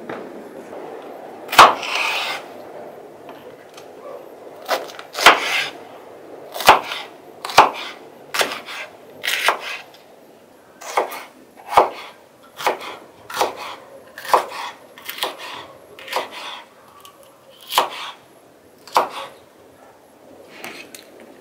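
Kitchen knife slicing green bell peppers on a wooden cutting board: each cut ends in a sharp knock of the blade on the board, about sixteen cuts at an uneven pace of roughly one a second, stopping shortly before the end.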